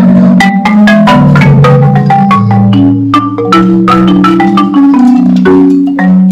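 Four-mallet playing on a Musser marimba: a quick, steady run of struck wooden bars over ringing low notes, with the last low note left ringing.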